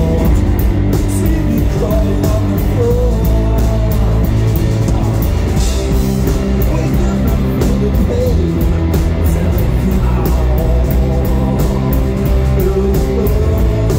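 Rock band playing live and loud: a drum kit with a steady beat of cymbal hits, electric guitars, and a singer's voice at times.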